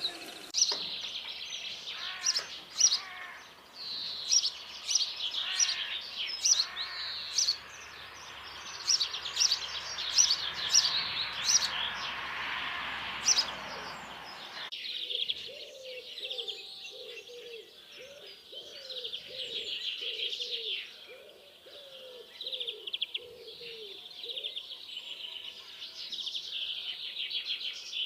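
Songbirds chirping and singing, many short high notes overlapping. About halfway through, the background hiss cuts off suddenly, and a lower call starts, repeated over and over under the chirping.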